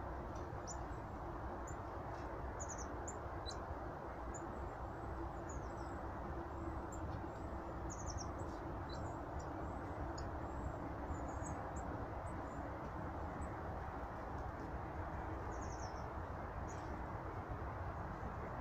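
Small birds chirping: scattered short, thin, high calls over a steady rushing background noise.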